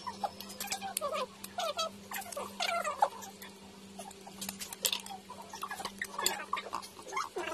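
Eating a whole cooked crab by hand: repeated sharp clicks and cracks of the shell being broken and picked apart, mixed with short squeaky sucking and smacking mouth sounds.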